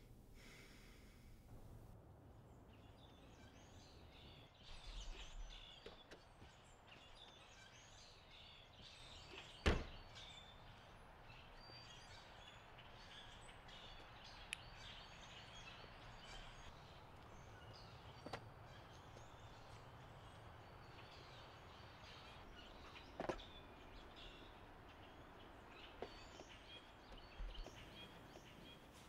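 Faint outdoor ambience with distant birds chirping, broken by a few sharp knocks, the loudest about ten seconds in.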